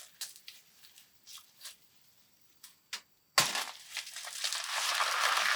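Scattered light clicks and snaps, then about three and a half seconds in a sudden loud rustling, crinkling noise that keeps going.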